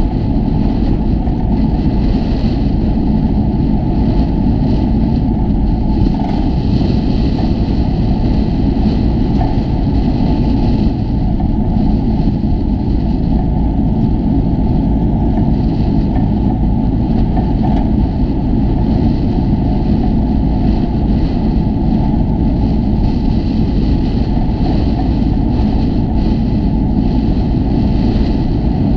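TEM2 diesel shunting locomotive's six-cylinder engine running, a loud steady drone with no change in pitch.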